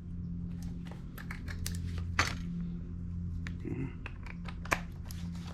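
Irregular small sharp clicks and taps from copper pipe and a hand reaming tool being handled, over a steady low hum.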